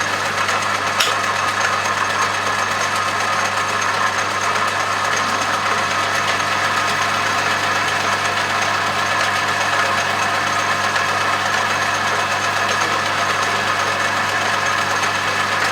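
Metal lathe running steadily while an insert tool takes a quarter-millimetre cut on a 20 mm steel bar, with one short click about a second in.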